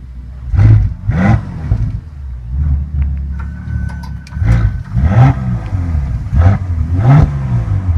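2016 Bentley Bentayga's twin-turbo W12 engine revved in about six quick blips, mostly in pairs, falling back to a steady idle between them.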